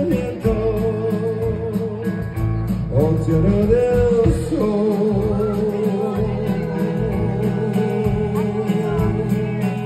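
A live band plays a song: upright bass, drums and guitar, with a man singing long held notes over them.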